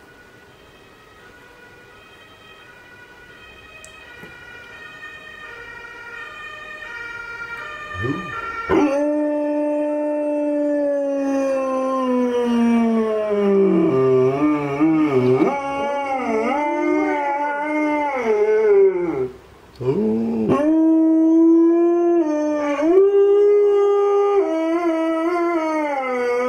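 A faint siren, growing louder over the first several seconds; then Alaskan malamutes howl in answer to it, the near male in long, loud howls that glide down in pitch, with a second malamute howling from further off. The howling breaks off briefly about three-quarters of the way through, then starts again.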